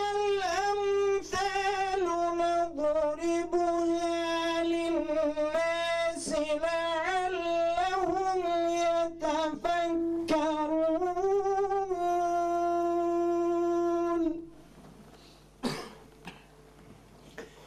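A man's voice reciting the Quran in the melodic, chanted tajweed style into a microphone, in long ornamented phrases. The last phrase ends on a long held note about fourteen seconds in.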